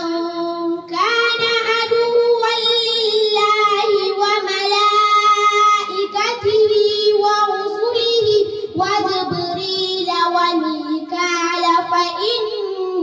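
A young girl's voice reciting the Quran in melodic tajwid chant, drawing out long held notes with brief pauses about six and nine seconds in.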